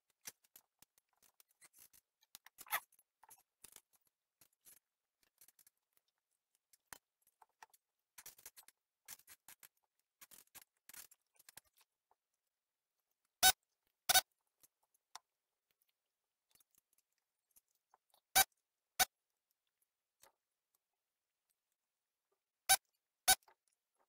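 Faint handling noise of circuit boards and small parts on a rubber work mat, soft ticks and rustles. Then come three pairs of sharp clicks, the two clicks of each pair about half a second apart.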